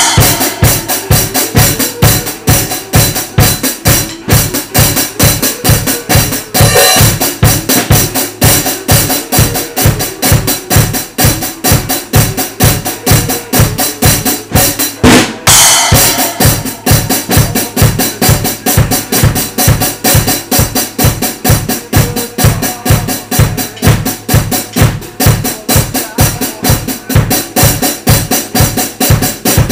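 Acoustic drum kit played to a steady beat, about two bass drum strokes a second with snare and cymbals, along with a recorded song. Two louder cymbal crashes come about seven and fifteen seconds in.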